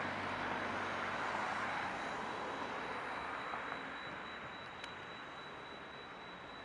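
Steady rushing noise of a passing vehicle, gradually fading away, with a faint steady high whine throughout.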